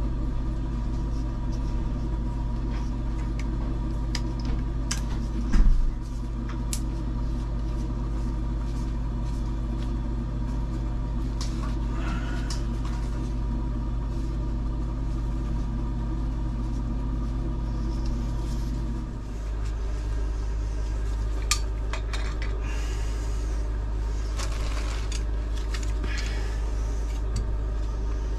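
A steady machine hum runs throughout, its pitch shifting slightly about nineteen seconds in, with scattered light clicks and clinks of small metal fittings and tools being handled and a single thump about five and a half seconds in.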